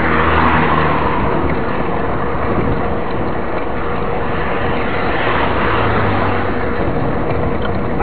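Steady rushing ride noise from a mountain bike rolling along an asphalt road: wind on the microphone with tyre and drivetrain noise. A car passes in the first second or so, with a second low vehicle hum around six seconds in.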